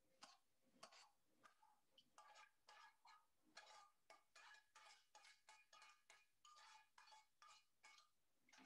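Very faint clinks and scrapes of a frying pan and utensils, a few light strokes a second, as sautéed vegetables are tipped out of the pan into a wok.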